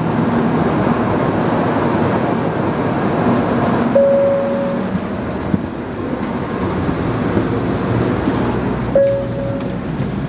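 Steady running noise inside a Shinkansen train at speed, with two short ringing tones about five seconds apart.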